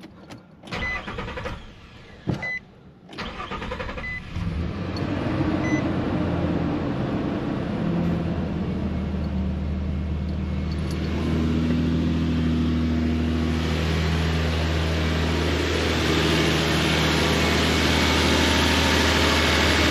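A few short beeps, then a Nissan engine cranks briefly and starts about three to four seconds in, settling into a steady idle. This is the first start after a new serpentine belt has been fitted, with the belt now driving the pulleys.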